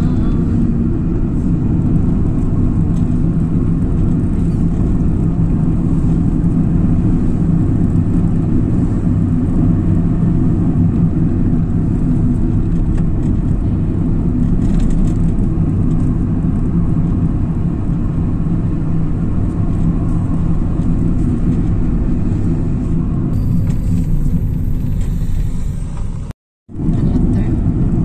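Steady low rumble of a car's engine and tyre noise, heard from inside the moving car, with a brief dropout to silence near the end.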